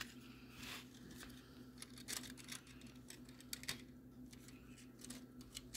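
Faint, scattered small plastic clicks and taps as model train cars are handled on the track and their couplers snapped together, over a low steady hum.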